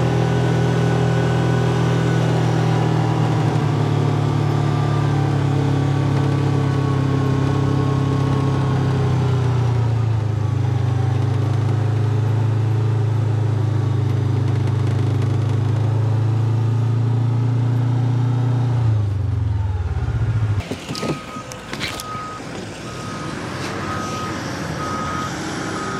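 Engine of a side-by-side UTV running steadily as it drives across the sand, its pitch easing down before it stops about twenty seconds in. Then the reversing alarm of a Volvo articulated dump truck beeps steadily, about two beeps a second, as the truck backs up to unload its sand.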